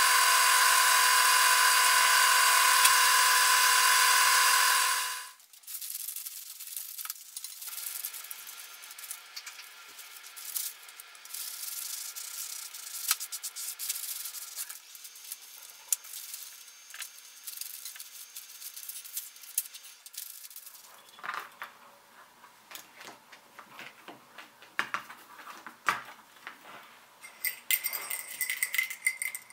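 Wood lathe spinning with a tool held against the turning wood, a loud, steady whine that stops about five seconds in. Then a quieter stretch of rubbing as a gloved hand wipes finish into leather straps, and near the end clinks and clicks of brass jingle bells and metal hardware being handled.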